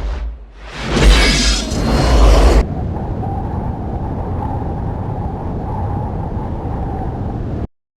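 Loud rising whoosh with a deep boom that swells twice, then a steady low rumble with a faint held tone. The rumble cuts off suddenly near the end.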